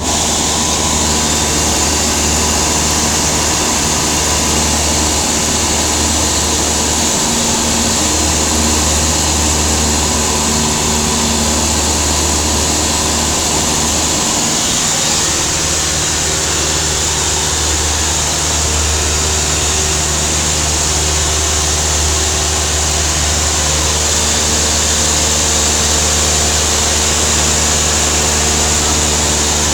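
Cessna 172's piston engine and propeller droning steadily in flight, heard from inside the cabin, with a constant rush of air noise over it.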